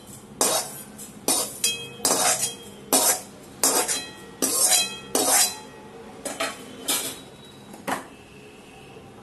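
A metal spoon scraping and knocking against a metal kadhai as roasted cumin and fennel seeds are scooped out. There are about a dozen sharp clinks and scrapes, some ringing briefly, spaced more widely toward the end.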